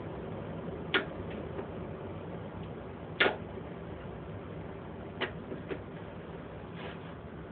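Pliers working the wheel's axle pin on a tiller, making a few separate sharp clicks and knocks. The loudest comes a little past three seconds in, over a steady low hum.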